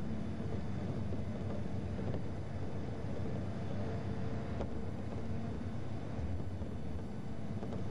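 Steady engine and road noise of a vehicle driving at speed, a low drone with a faint steady whine above it.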